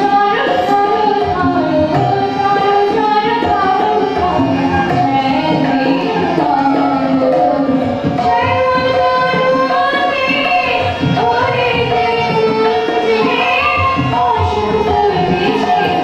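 A woman singing a melodic song while playing a harmonium, with a steady drum beat underneath.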